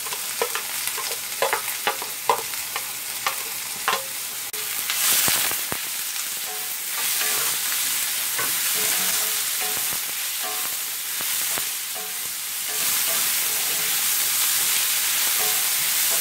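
Chopped onion and green chillies frying and being stirred in hot coconut oil in a regular (not non-stick) pan, a steady sizzle. Sharp clicks come over the first few seconds, then the sizzle gets louder about five seconds in.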